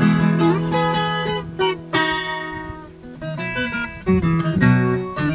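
Instrumental break of a sertanejo song: acoustic string instruments strummed and plucked in quick runs over held low bass notes.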